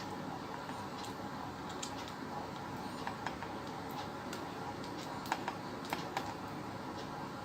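Irregular small clicks and ticks over a steady hiss, from cutting and pulling apart the tape that binds a TV's Wi-Fi module cable to its power-switch wire.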